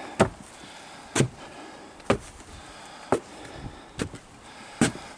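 Slow, steady footsteps: six single steps about a second apart.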